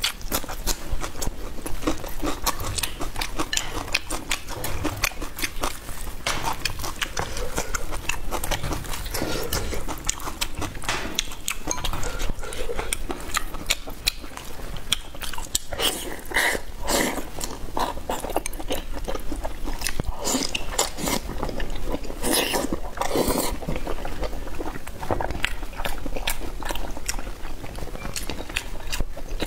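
Close-miked eating: a person chewing and biting food, a steady run of sharp crackly clicks, with a few louder crunches past the middle.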